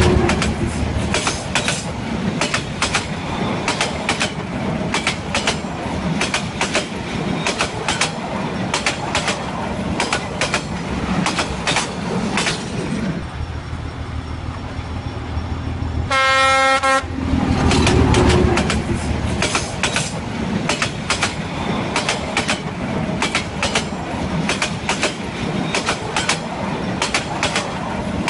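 Trains passing close by, their wheels clacking rapidly and unevenly over rail joints. A short multi-note train horn blast sounds about sixteen seconds in.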